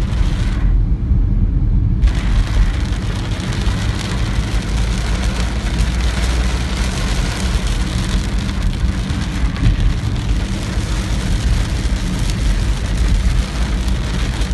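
Heavy rain on a moving car with a steady rumble of tyres and engine underneath, heard from inside the car. The rain hiss dulls briefly about a second in, then returns.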